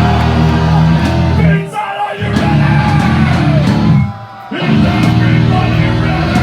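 Live hardcore punk band playing a loud, distorted electric guitar and bass riff in stop-start fashion: the band cuts out sharply twice for about half a second and crashes back in.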